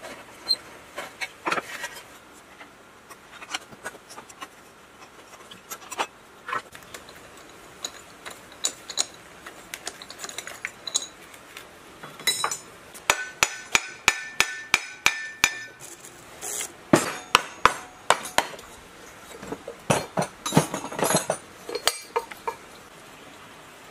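Hand tools and rusted steel parts of a small gas generator engine clinking and knocking as it is taken apart. In the middle comes a quick run of about a dozen sharp metallic taps, each with a short ring. Near the end there is a denser cluster of rattling knocks.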